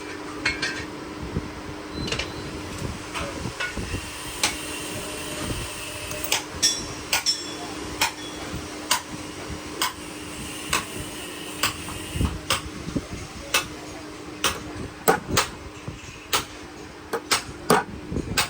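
Irregular sharp metal taps and clinks from hand tools working on shock absorber parts, roughly one a second with some quick clusters, over a steady hum.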